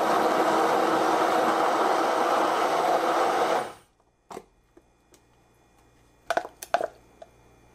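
KitchenAid 2-speed hand blender running steadily on speed 2, its blending arm whipping cold heavy cream in the plastic beaker. The cream is at the soft-peak stage. The motor cuts off about four seconds in, and a few light clicks and knocks follow.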